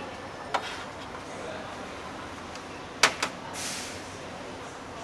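Serving utensils clinking on metal trays and plates at a curry counter: one sharp clink about half a second in, then two close together about three seconds in, followed by a brief hiss, over a steady restaurant background hum.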